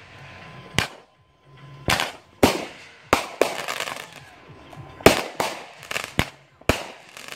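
Aerial fireworks bursting overhead: about a dozen sharp bangs in quick, irregular succession, each trailing off briefly.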